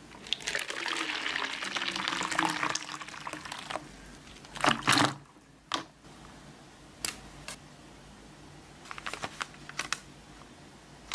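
Water poured in a stream into a plastic bowl for about four seconds, the pitch rising as the bowl fills. A louder splash comes about five seconds in, followed by scattered light clicks.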